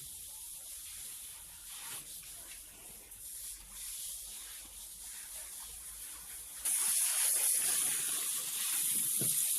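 Water spraying as a cow shed is washed down, a steady hiss that suddenly gets much louder and brighter about two-thirds of the way through.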